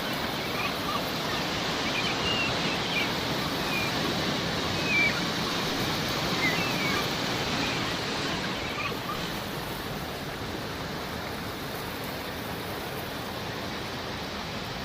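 Sea waves washing in with a steady rush, with gulls giving short calls over roughly the first nine seconds before they stop.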